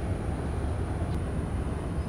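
Steady low rumble of a passing patrol vessel's engines across the water, with one faint click about a second in.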